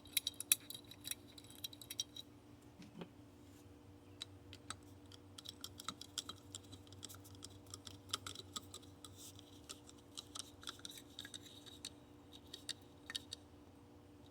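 Scattered light clicks and ticks of small hardware as a screw is driven with a screwdriver into an outdoor faucet's new plastic handle.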